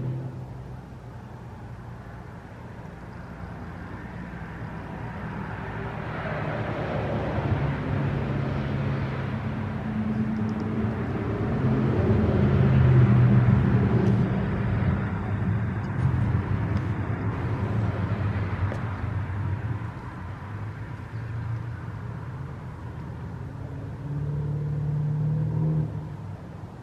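A motor vehicle going past, its engine hum and road noise slowly growing louder to a peak about halfway through and then fading away. A shorter swell of low engine hum follows near the end.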